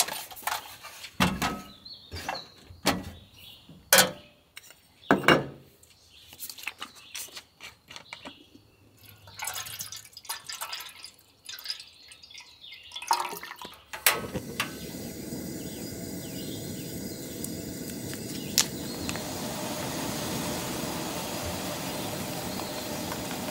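Water poured from a bottle into a small camp kettle, amid clicks and knocks of the kettle and lid being handled. About fourteen seconds in, a sharp click and the GasOne portable butane stove's burner comes on and runs with a steady hiss.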